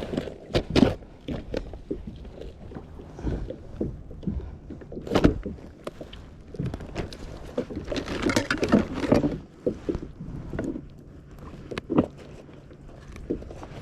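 Irregular knocks and bumps from handling fishing gear aboard a small boat, with a rougher stretch of rustling and scraping about eight seconds in.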